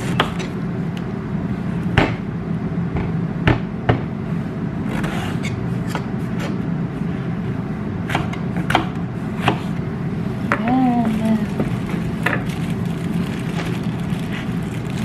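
Kitchen knife cutting through an eggplant and knocking on a wooden cutting board, with short sharp knocks every second or two over a steady low hum. A brief voice sound comes near the middle.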